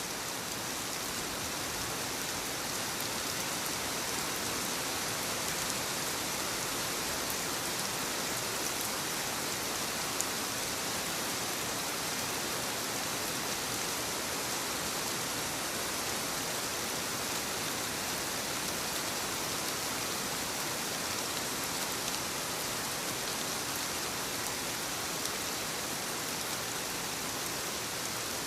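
Steady rainfall: an even hiss of rain falling and pattering on surfaces.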